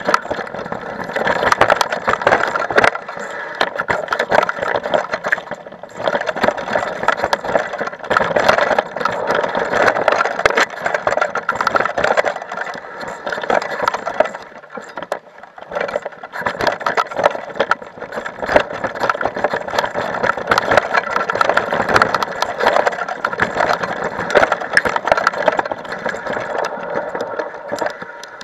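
Mountain bike riding fast over a rough dirt singletrack, heard from a camera carried on the bike or rider: a steady clattering rattle of the bike and its tyres on the ground, full of sharp knocks, easing off briefly a few times.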